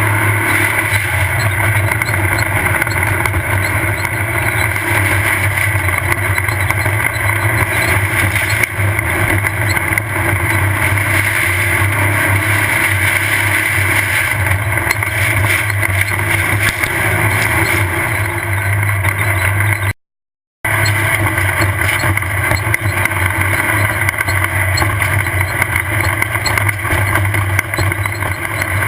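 Off-road desert race buggy's engine running hard at steady revs. The sound cuts out completely for under a second about twenty seconds in.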